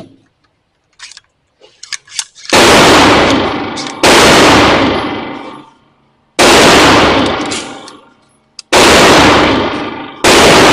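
Five loud gunshots from a 9mm carbine or 5.56 AR pistol, fired one at a time a second and a half to two and a half seconds apart, each followed by a long fading ring. A few small clicks of gun handling come before the first shot.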